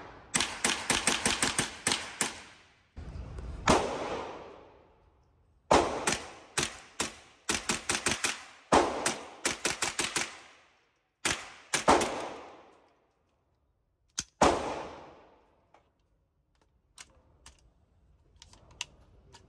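Gunfire from an AR-15 converted to fire .22 LR with a drop-in conversion kit: quick strings of about five shots a second, broken by a few single, louder shots with long echoes off the indoor range walls. A few faint clicks follow near the end.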